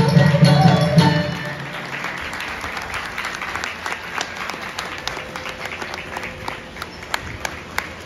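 The closing note of a Carnatic dance song dies away about a second and a half in, and the audience applauds. The clapping is scattered and thins out toward the end.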